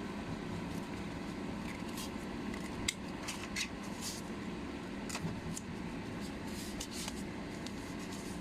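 Hand ratchet screwdriver being handled and worked, giving irregular small clicks and short ticks, the sharpest about three seconds in, over a steady low hum.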